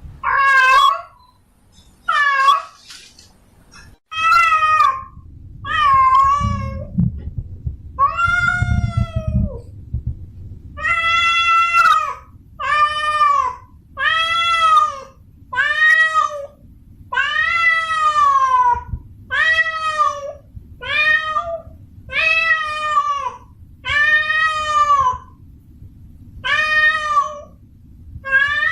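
Female cat in heat calling for a mate: a steady series of about eighteen drawn-out meows, roughly one a second, each rising and then falling in pitch.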